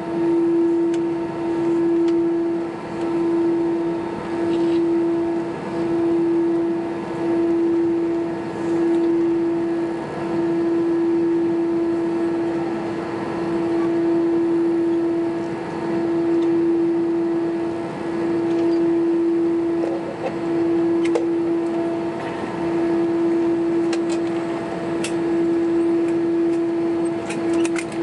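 Cabin noise of an Airbus A320 taxiing after landing: a steady droning tone that dips briefly about once a second over a constant rushing background.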